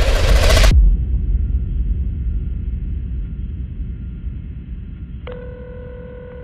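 Electronic sound design: a loud rushing noise cuts off sharply under a second in, leaving a deep rumble that slowly fades. Near the end a steady electronic beep tone, like a dial tone, sounds for about a second and a half and stops abruptly.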